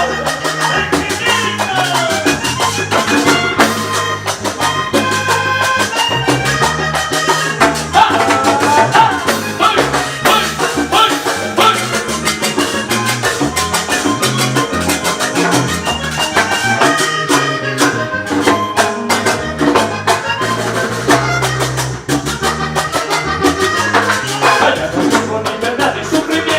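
Upbeat Latin band music with brass, percussion and a steady bass line, with no clearly sung words.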